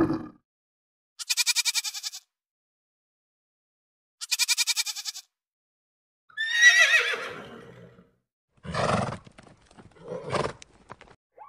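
A sequence of separate animal-call sound effects: two short, rapidly pulsed high calls a few seconds apart, then a longer wavering call that falls in pitch, then two short rough snorts near the end.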